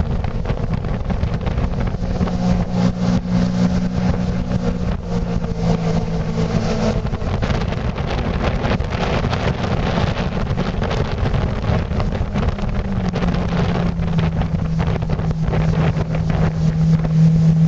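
Aluma-Jet aluminium jet boat's engine running under way, with wind buffeting the microphone. The engine tone shifts a little in pitch early on and holds steady through the second half.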